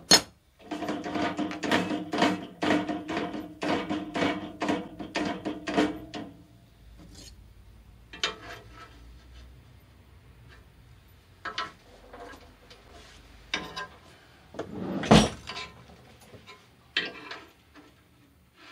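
Metal-on-metal clinking and knocking as metal parts and a steel square are handled against a band saw's steel table: a quick run of rattling knocks with a faint ringing tone for the first several seconds, then scattered single knocks and one louder clank about three-quarters of the way through.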